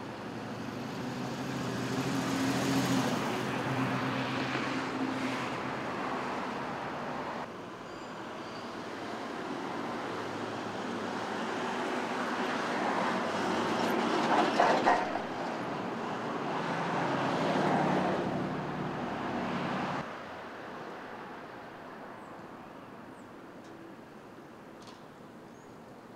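Street traffic: vehicles passing one after another, each engine and its tyre noise swelling and fading. The sound drops abruptly twice, leaving quieter steady road noise near the end.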